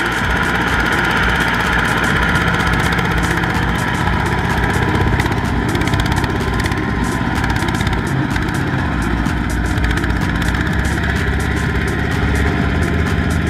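Single-cylinder diesel engine of a two-wheel walking tractor running steadily under load as it drags itself and its trailer out of sticky mud.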